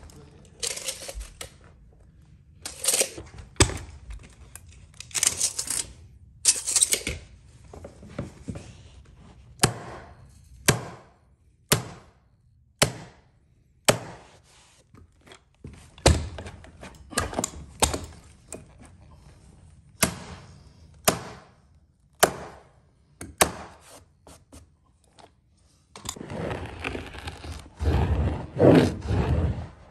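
An electric staple gun fastening a carpet stair runner: sharp single shots, about one a second through the middle, between rustling of carpet being handled and pressed into place.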